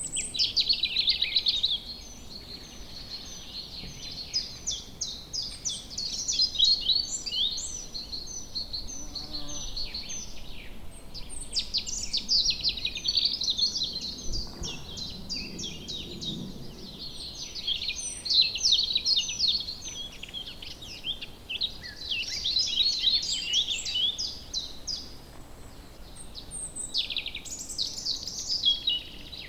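Several songbirds singing at once in woodland: a busy, overlapping chorus of quick high chirps and trills that swells and eases every few seconds.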